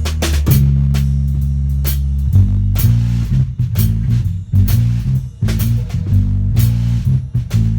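Aria Pro II Les Paul-type electric guitar with humbucking pickups, played straight into a Marshall JCM2000 with crunchy overdrive. A chord rings out for about two seconds, then gives way to choppy, rhythmic strummed chords with sharp pick attacks.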